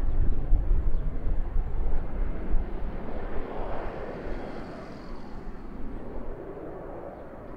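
A departing aircraft's engines: a deep rumble that eases off, and a broader roar that swells about halfway through and then fades away.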